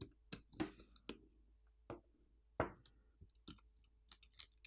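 Faint, irregular small clicks and taps of a metal pry tool and fingertips on a smartphone's main board and plastic frame as the board is pried free and lifted out, with a brief scrape after some of the clicks.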